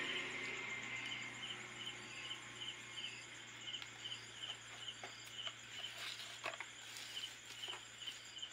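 A cricket chirping steadily, about three short chirps a second, with a few faint clicks of small plastic toy parts being handled.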